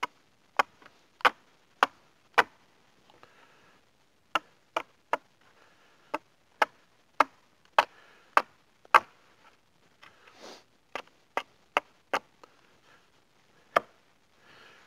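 Small axe chopping a point onto the end of a wooden pole laid against a log: about twenty sharp chops in runs of several, with short pauses between.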